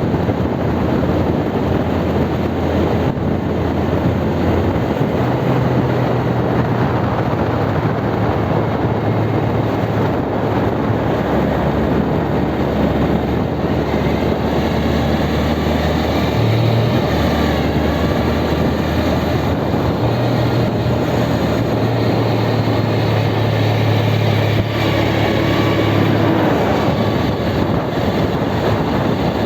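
Honda Grom JC92 (MSX125) 125 cc single-cylinder engine and five-speed gearbox running under way, with wind noise, and a whine from the transmission that joins in partway through and keeps going. The whine is the sign of a gearbox fault: the output shaft at the second-gear section was found scorched.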